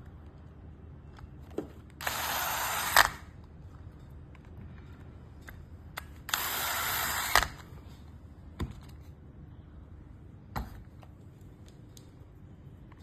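A small electric motor runs in two short bursts of about a second each, with a few sharp clicks in between.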